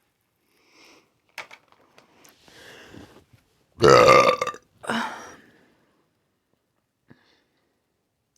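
A person's loud burp about four seconds in, followed at once by a shorter second one, with faint eating clicks and rustles before it.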